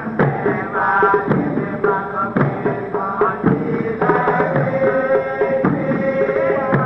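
Music: drums beating a steady rhythm under a melody.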